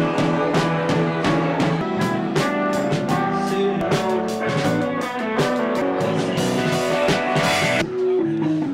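Rock band playing, with guitar over a drum kit keeping a steady beat.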